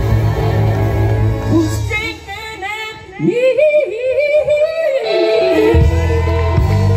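Live gospel band with singers, amplified through stage speakers. About two seconds in the bass and drums drop out, leaving a wavering vocal run, and the full band comes back in with held chords near the end.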